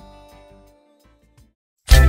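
Background music. Soft held notes fade out, then there is about a second of near silence. Near the end a loud new track starts, with drums.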